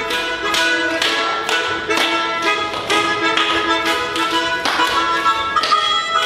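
Instrumental music: held melody notes over a steady beat of sharp struck notes, about two a second.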